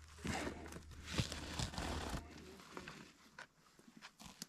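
Footsteps in snow with rustling, a few scuffs in the first two seconds, then quieter with scattered light clicks.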